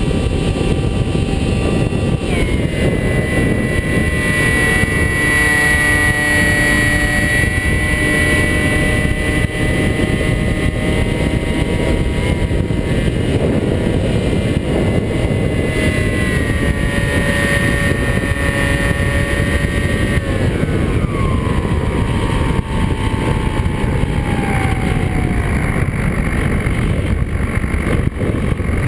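Electric motor and propeller of a Skywalker FPV model plane in flight, heard through heavy wind rush. The motor's whine jumps up in pitch about two seconds in, steps down near the middle, then glides steadily lower over several seconds before rising again at the very end.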